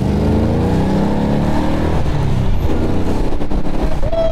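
1969 Dodge Charger's engine accelerating hard, heard from inside the cabin, its pitch rising steadily through the first couple of seconds. A short shout comes near the end.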